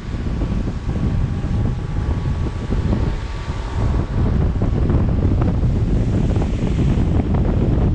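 Wind buffeting the microphone of a GoPro action camera on a moving car, a dense low rumble with the car's road noise on wet pavement beneath it. It grows a little louder about halfway through.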